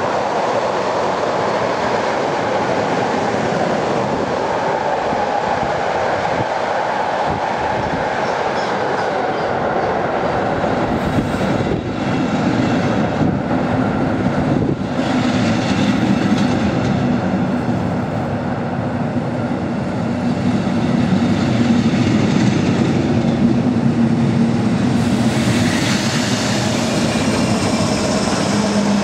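Double-deck regional train passing close by, pushed by a DB class 112 electric locomotive: steady rumble and clatter of wheels on the rails, with a hum coming in during the second half and getting louder near the end as the locomotive goes past.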